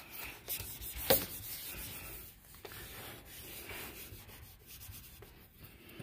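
A handheld dry-erase eraser wiping across a whiteboard, a continuous scrubbing rub, with one sharp knock about a second in.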